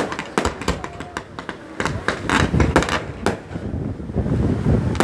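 Fireworks display going off: a rapid run of sharp bangs and crackles from bursting shells, growing denser and louder with deep rumbling booms from about two seconds in.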